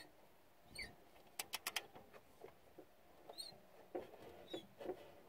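Faint squeaks, a quick run of four sharp clicks about a second and a half in, and a few soft knocks near the end, from the Toyota 1ZZ-FE engine's crankshaft being turned over by hand with the spark plugs out, so the pistons can move solvent-filled cylinders.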